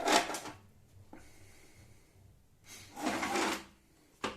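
The router table's guide rail sliding along the table top: a scraping slide at the start and another about three seconds in, then a short knock near the end.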